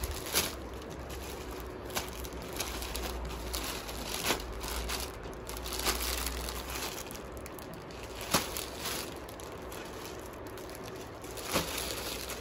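Crinkling and rustling of shirts and their packaging being handled and turned over, with scattered sharp clicks. A low hum runs underneath and stops about seven seconds in.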